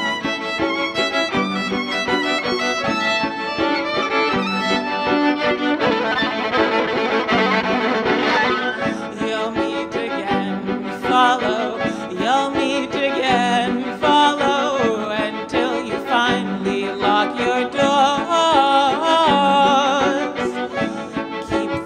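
Violin music built from layered, sustained bowed-violin parts over a low note that repeats about once a second, with electronic effects; the strings keep going when the violin is no longer being bowed, so the parts are looped. About halfway through, a woman's voice sings over the strings with a wide vibrato.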